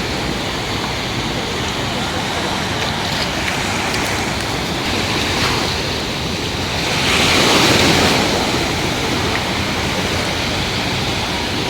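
Mediterranean sea waves washing onto the beach in a steady rush, with one wave breaking louder about seven seconds in. Wind buffets the microphone.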